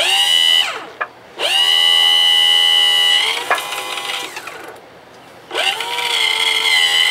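Electric power tilt-and-trim pump motor from a 1987 Johnson 40 hp outboard, run in three bursts with a steady high whine: a short run of under a second, about two seconds of running, and a third run starting about two thirds of the way in. The pump is being run on the bench after a fluid top-up to work the air out of the unit.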